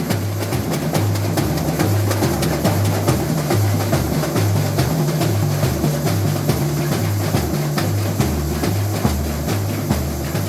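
Samba school bateria playing: deep surdo bass drums alternate between a higher and a lower pitch in a steady beat, with snare drums and other percussion playing dense, fast strokes on top.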